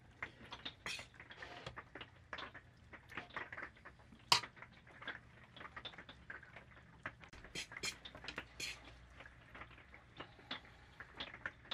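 Scattered light clicks and taps of kitchen handling as dipped tortillas are rolled and set into a ceramic crock pot insert, with one sharper knock about four seconds in.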